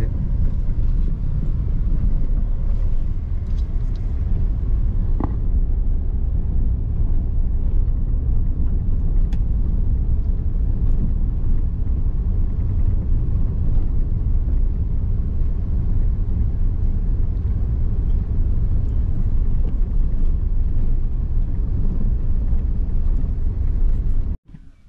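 Steady low rumble of a car driving along an unpaved dirt lane, heard from inside the cabin, with engine and tyre noise. It cuts off abruptly near the end.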